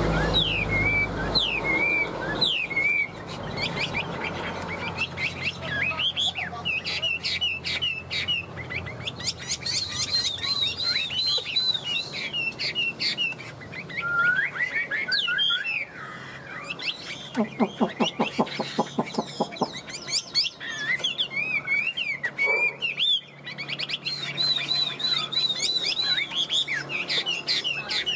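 Chinese hwamei singing: a continuous run of whistled phrases that slide up and down in pitch, with a fast low rattle lasting about two seconds past the middle.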